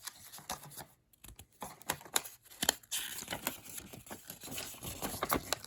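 Packaging in a carburetor tuning kit crinkling and rustling as it is handled, with irregular small clicks and taps.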